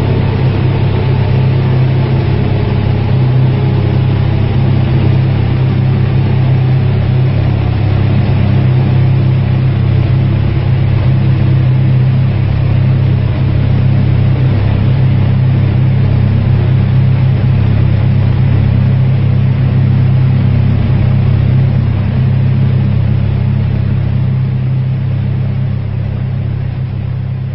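Stroked 2.0-litre four-cylinder engine of a tuned Seat Leon running on a chassis dynamometer with a loud, steady low drone. Its higher tones fall in pitch over the first few seconds, and it eases off slightly near the end.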